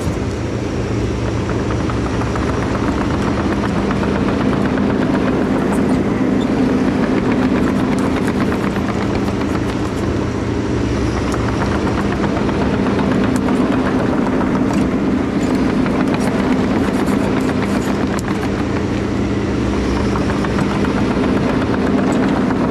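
Takeuchi TB2150 excavator's diesel engine running steadily, with an even low hum that holds the same pitch.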